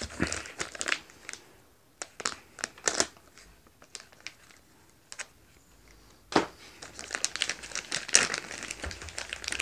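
Thin plastic film wrapped around a stack of disposable plastic cups being worked open, crinkling and crackling in scattered bursts, with one sharp snap about six seconds in and denser crinkling near the end.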